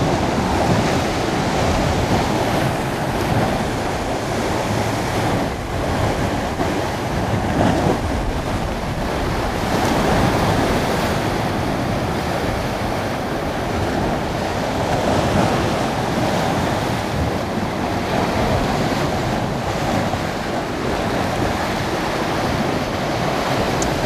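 Rough sea surging and foaming against rocks in a narrow cove, a continuous rushing wash, with wind buffeting the microphone.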